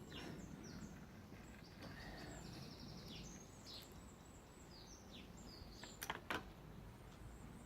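Small birds chirping: repeated short, high, falling chirps and a quick trill about two and a half seconds in, over faint background noise. Two sharp knocks about six seconds in.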